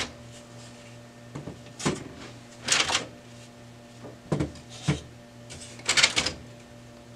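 Toner cartridge and drum units of a Brother color laser printer being slid out of the printer and set down on a table: a series of plastic clunks and scraping slides, about six in all, over a faint steady hum.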